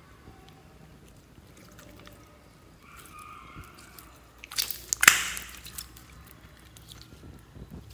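Clear slime studded with plastic pearl beads, squeezed and stretched by hand: soft wet squishing with scattered small clicks, then a short burst of loud sharp clicks and pops about four and a half seconds in.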